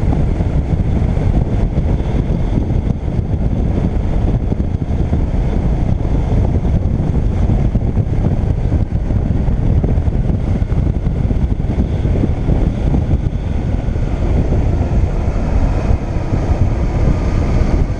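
Motorcycle riding steadily along a road, its engine running under heavy wind buffeting on the camera's microphone.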